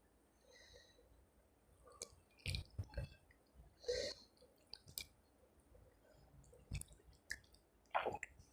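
Faint eating sounds: chewing, with scattered wet squishes and mouth clicks, while eating rice with masoor dal.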